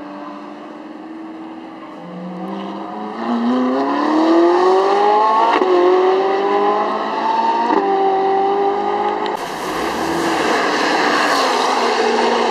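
Sports car engine accelerating hard, its pitch climbing and then dropping sharply at two upshifts. From about nine seconds in, a loud rushing noise takes over.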